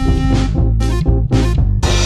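Background music with a steady beat, drums and pitched instruments, in a jazzy, swing-like style.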